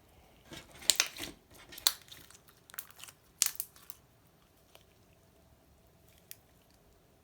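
Clear slime being worked by hand, giving a run of sharp crackles and pops. There are three loud ones in the first few seconds, then only a couple of scattered clicks.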